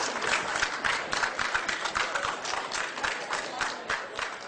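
Audience applause: a dense run of many hands clapping, slowly getting quieter.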